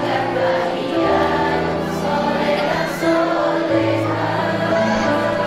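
A group of teachers singing a slow song together in unison over instrumental backing music, with long held notes above a sustained bass.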